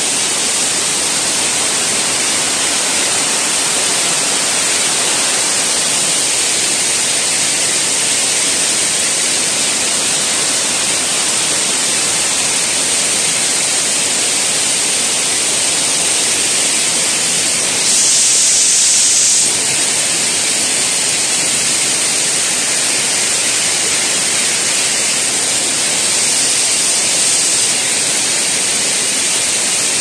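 Steady, even rushing of a 50 m two-tier waterfall falling onto rock. About 18 seconds in it grows louder and hissier for a second or so.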